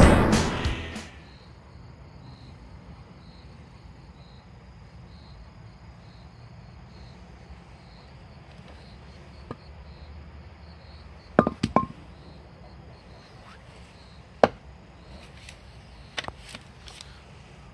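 Background music fades out within the first second. Then comes quiet outdoor ambience with insects chirping faintly and regularly, broken by a few sharp taps and knocks, as a knife is handled against a wooden stump.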